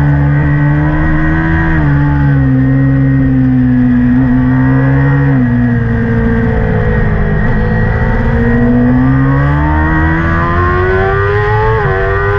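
Kawasaki ZX-6R's inline-four engine heard from an onboard camera. Its pitch drops in two steps while the bike slows through a corner, then rises steadily under acceleration, with a brief dip at a gear change near the end.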